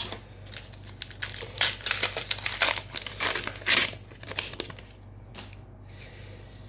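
A foil trading-card booster pack wrapper crinkling and tearing as it is opened. There is a run of crackles lasting about four seconds, which dies down near the end.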